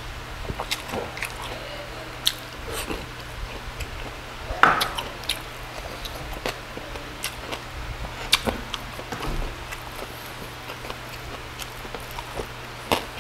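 Close-up eating sounds of a person chewing crispy roast pork belly (lechon liempo) and rice with the mouth: many short sharp crunches and lip smacks. A louder wet mouth sound comes about four and a half seconds in. A faint steady hum runs underneath.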